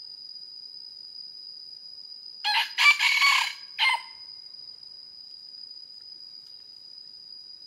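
Red junglefowl rooster crowing once: a short opening note, a longer middle section and a short clipped final note, over a steady high-pitched insect drone.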